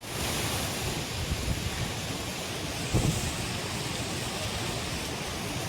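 Heavy rain and strong wind making a steady noise, with the wind rumbling on the microphone.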